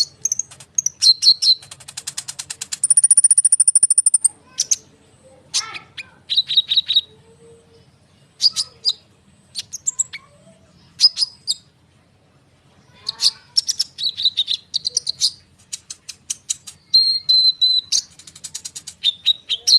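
Brown-throated sunbird (kolibri ninja) singing in a rolling, run-on song: sharp high chips and short whistles in quick series, with a long, very fast trill about three seconds in and more rapid trills near the end.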